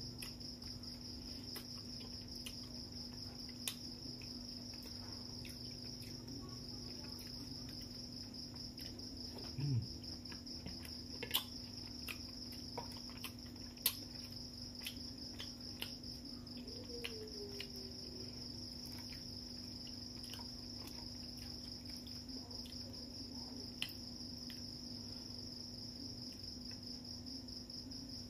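Crickets chirp steadily in the background over a low, steady hum. Scattered small clicks and smacks come from eating fried fish by hand. There is a short, low falling tone about ten seconds in.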